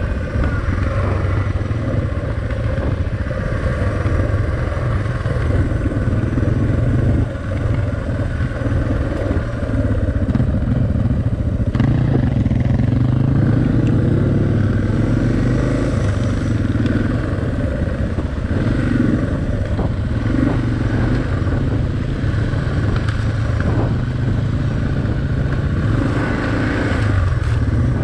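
Suzuki DR650's single-cylinder four-stroke engine running steadily while riding a dirt track, with scattered knocks and rattles over bumps. The engine gets a little louder for a few seconds near the middle.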